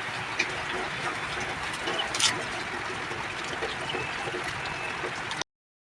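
Steady rush of heavily pouring water, with a couple of light knocks about half a second and two seconds in.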